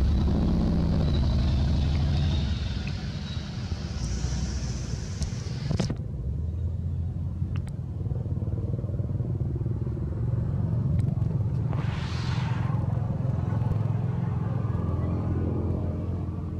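Road traffic passing close by: vehicle engines over a steady low rumble, one of them a motorcycle. Near the start an engine note falls in pitch as a vehicle goes by, and around twelve seconds in another pass swells and fades.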